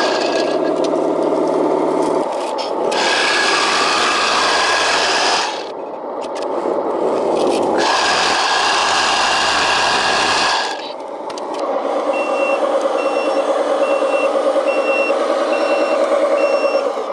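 1/14-scale RC construction machine at work: motor and gear whine with scraping, in several short stretches that change abruptly. From about twelve seconds in, a reversing beeper sounds about one and a half times a second over a steady motor hum.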